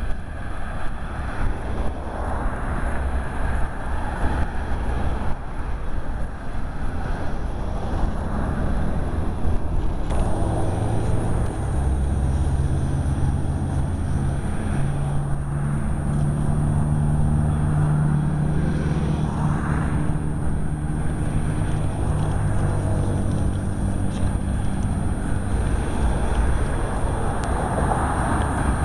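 Outdoor noise of wind buffeting the microphone over road traffic, with a vehicle engine running steadily for a stretch in the middle.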